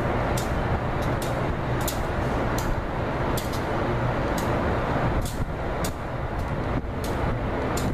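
Amtrak diesel locomotive moving slowly through the yard on a switching move with a coach ahead of it. The engine makes a steady low rumble, and the wheels click sharply over rail joints and switches about once or twice a second.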